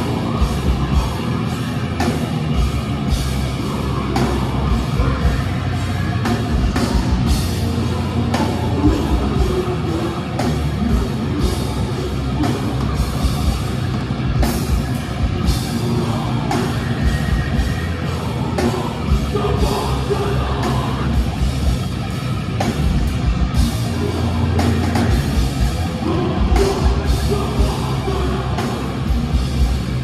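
A metalcore band playing live through a large PA: distorted bass and guitars over drums struck many times a second, loud throughout.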